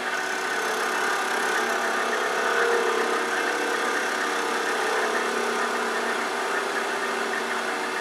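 Wood lathe running at a steady hum while a small gouge takes light cuts on the thin tip of a spinning spindle piece.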